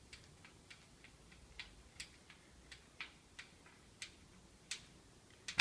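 Hand screwdriver driving a screw into a screen door lock: a faint series of light, sharp clicks, about three a second, as the screw is tightened.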